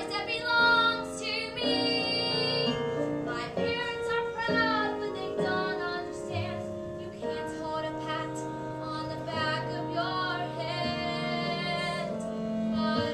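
Children singing a musical-theatre song over instrumental accompaniment.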